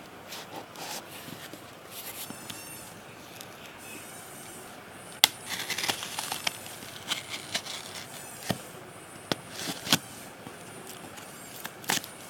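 Package being opened by hand: wrapping crinkling and tearing in short spells, with scattered sharp clicks and snaps, the loudest about five seconds in.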